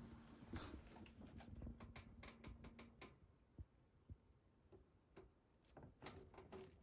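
Faint, irregular creaks and rustles of a cat stepping into a wicker basket bed and treading about on its cushion.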